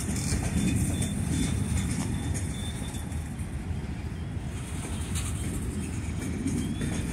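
Freight train cars, a tank car and covered hoppers, rolling past: a steady low rumble of steel wheels on rail.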